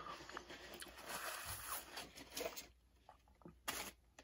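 Faint, crackly chewing and mouth noises close to the microphone, with small clicks. They go quieter after about two and a half seconds, leaving a couple of short sharp clicks near the end.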